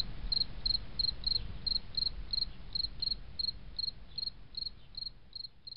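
Rhythmic high chirping like a cricket's, about three chirps a second, over a low rumble, growing fainter near the end.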